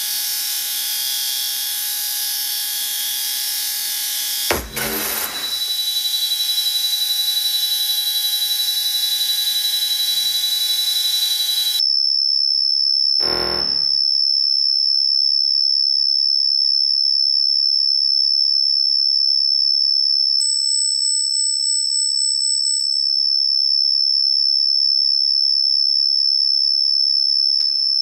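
Electronic soundtrack of a contemporary dance piece. A dense hissing noise layered with steady tones is cut by a sharp hit about four and a half seconds in. At about twelve seconds it drops away, leaving a single high, alarm-like pure tone. A short burst of noise follows soon after, and a second higher tone is added for a couple of seconds around twenty-one seconds.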